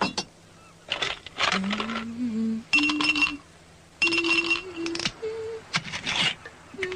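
A voice humming a slow tune in long held notes, broken by short bursts of clinking glass. Twice, about three and four seconds in, a glass rings on with a thin high tone.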